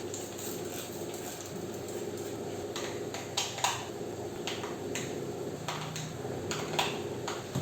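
Household items being handled and set down while a kitchen is rearranged: scattered light knocks and clicks of bottles and containers, with a few sharper ones about three and a half and seven seconds in, over a steady low hum.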